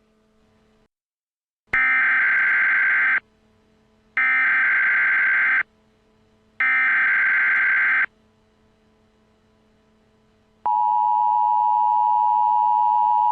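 Emergency Alert System SAME header: three identical harsh digital data bursts, each about a second and a half long with about a second between them. About two and a half seconds later the steady two-tone EAS attention signal starts and holds, marking the start of an alert message.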